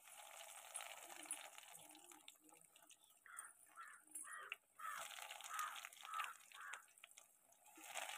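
Faint sizzling and bubbling of hot oil in a metal kadai as breaded bread-and-egg cutlets are dropped in to deep-fry. A faint voice is heard in the background in the middle.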